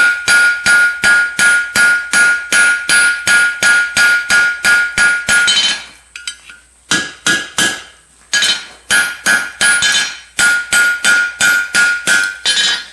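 Hand hammer striking a hot 3/8-inch round steel rod on an anvil, flattening a U-bent horseshoe blank: steady blows about three a second, each with a ringing anvil tone. The blows stop for a moment just past the middle, then pick up again until near the end.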